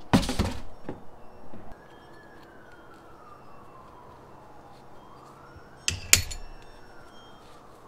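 A faint siren wailing slowly down and up in pitch, each sweep taking a few seconds. A loud clatter sounds in the first second, and two sharp knocks come about six seconds in.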